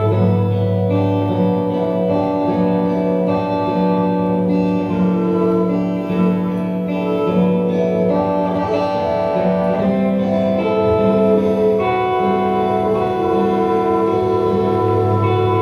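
Instrumental music: long held organ-like chords over a sustained bass note, changing every second or two, with plucked guitar.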